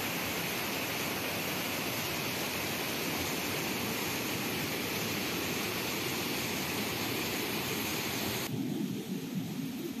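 Steady rushing of a waterfall in full flood, swollen by heavy rain, with muddy water pouring over rock. A little past eight seconds in the sound changes abruptly: the hiss drops away and a lower, uneven rushing remains.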